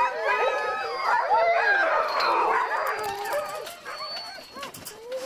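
A yard full of chained sled dogs (huskies) howling and yelping together in an overlapping chorus, excited to be picked for a sled run; the din thins out after about three and a half seconds.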